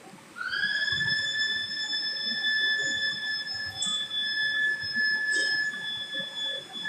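A steady, high whistling tone that slides up into pitch about half a second in and then holds, with two faint clicks partway through.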